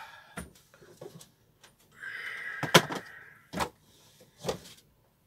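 Plastic food storage boxes being handled and stacked: a short scraping slide about two seconds in, then a few sharp knocks about a second apart as boxes are set down.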